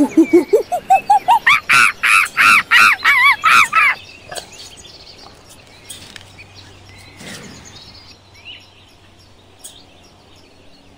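A monkey calling: a series of hoots that rise in pitch and quicken over about two seconds, then a run of high, arched calls that stops about four seconds in. After that, only faint outdoor ambience with a few scattered chirps.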